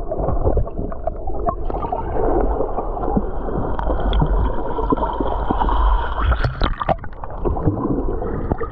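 Water heard from under the surface: muffled gurgling and sloshing with a low rumble and scattered clicks and knocks as swimmers move through the water, two sharper knocks near the end.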